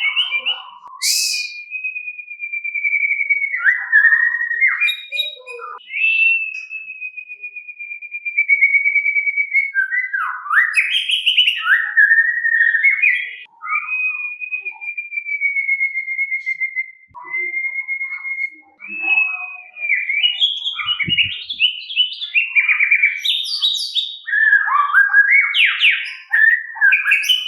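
White-rumped shama singing in the drawn-out 'ngeplong' style: several long, clear whistles that slide slowly downward, each held two to three seconds, broken up by short rapid warbles and chattering phrases that grow busier toward the end.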